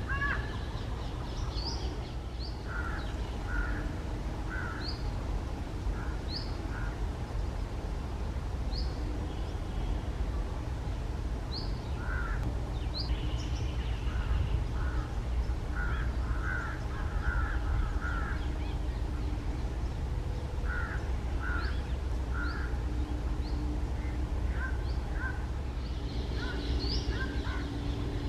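Birds calling: short harsh calls repeated in small clusters, with brief high chirps scattered between, over a steady low rumble.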